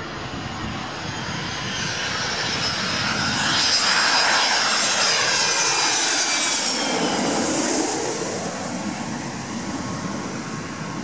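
Boeing 737 jet airliner with gear down on landing approach, passing low overhead. The engine noise swells to a peak in the middle, and a high whine falls in pitch as the plane goes past, then the sound eases as it moves away.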